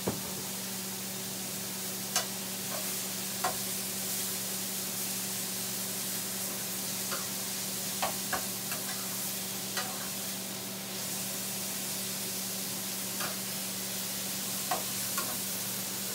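Onion and tomato sizzling in olive oil in an electric skillet, stirred with metal tongs that clack against the pan now and then. A steady low hum runs underneath.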